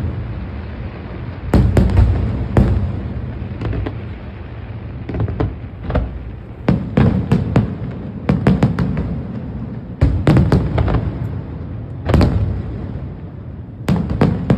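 Aerial fireworks show: a string of loud bangs from shells bursting overhead, some single and some in quick clusters of two to four, every second or two, each trailing off in a low rumbling echo.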